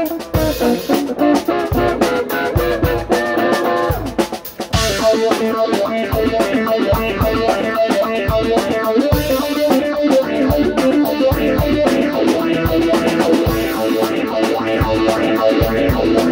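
Live band playing: electric guitar, bass guitar and drum kit, with a short drop in level about four seconds in before the full band carries on.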